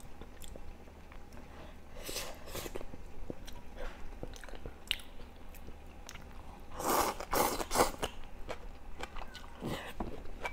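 Close-miked chewing and biting of food, coming in a few short clusters of wet, crunchy clicks, the loudest about seven seconds in.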